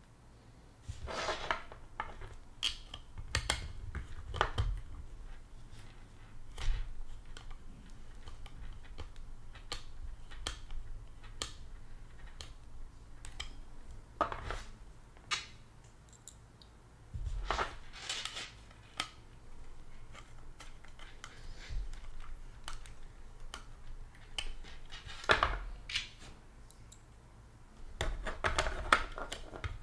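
Small screwdriver turning case fan screws through a metal case into a plastic fan frame, the screws cutting their own threads into the plastic. Scattered clicks and knocks, with several longer scraping turns as each screw is driven in.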